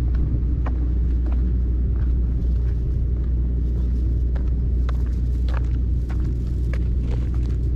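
Steady low rumble of wind buffeting an action camera's microphone, with scattered light clicks and taps over it.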